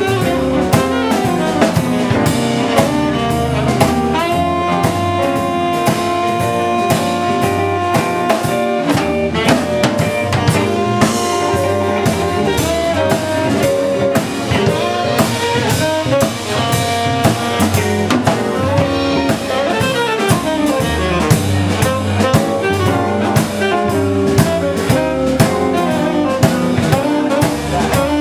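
Live band playing an instrumental jazz passage: a drum kit keeps a steady beat under a line of held horn notes.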